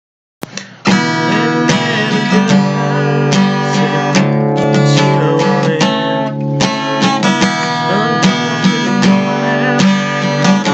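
Acoustic guitar strummed in a steady rhythm. A light first touch of the strings comes about half a second in, and full strumming begins just under a second in.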